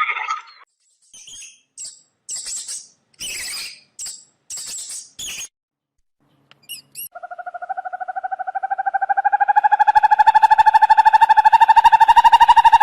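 An animal calling: a run of short, high-pitched squeaky calls, then about seven seconds in a long, rapidly pulsed trill that holds one pitch, slowly rises a little and grows louder.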